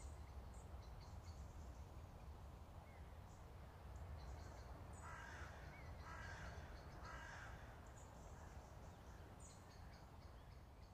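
Faint birdsong ambience: scattered high chirps, with three harsh calls about a second apart around the middle, over a low steady hum.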